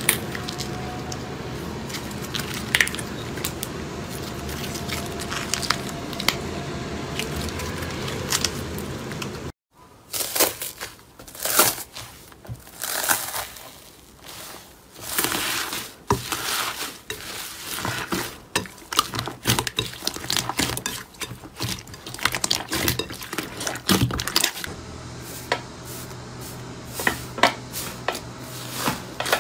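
Slime being squeezed and pressed by hand, crinkling and crunching. About a third of the way in it breaks off and a new stretch starts with separate sharp crackles and pops.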